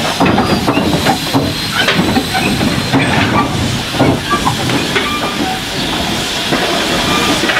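GWR No. 813 0-6-0 saddle tank steam locomotive moving slowly with a train of loose-coupled freight wagons: steam hissing over a run of irregular clanks and knocks from the wheels and couplings.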